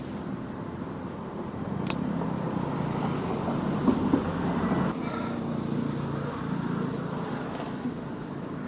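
Steady hum of road traffic with passing car engines, and a single sharp click about two seconds in.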